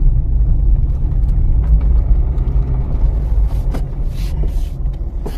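Car interior rumble of engine and road noise from a car driving slowly, easing a little toward the end, with a few brief rustling sounds about three and a half to four and a half seconds in.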